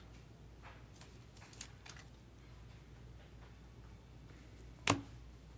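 Faint rustles and ticks of a trading card and a clear plastic sleeve being handled and slid into a rigid plastic top loader, with one sharp click about five seconds in.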